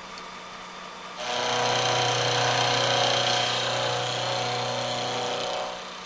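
Vertical milling machine cutting a flat on a steel shaft held in a dividing head: a steady grinding machine sound with a low hum starts about a second in as the table feeds the work past the cutter, and stops shortly before the end.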